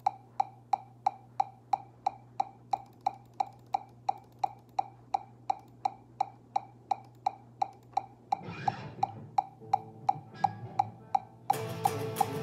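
A metronome click ticking steadily, about eight clicks every three seconds, over a low hum. Near the end an electric guitar comes back in, playing loudly along with the click.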